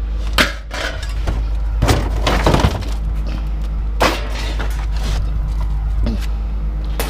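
Scrap being handled: several sharp crashes and clatters, a cluster of them about two seconds in, over a steady low engine rumble.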